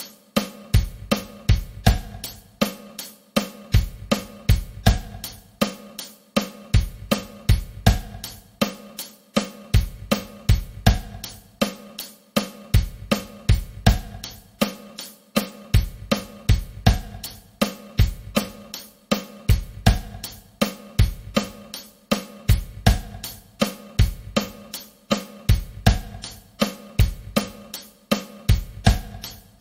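Drum kit playing a steady groove: hi-hat on every eighth note, snare on the backbeat and a bass drum pattern that shifts from bar to bar, in an even, regular pulse.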